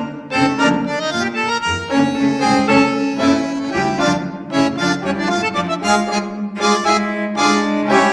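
Instrumental background music: a melody of quickly changing notes over a sustained lower line.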